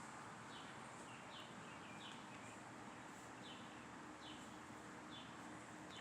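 Faint bird call: a short, thin, downward-sliding chirp repeated about once a second over quiet outdoor hiss.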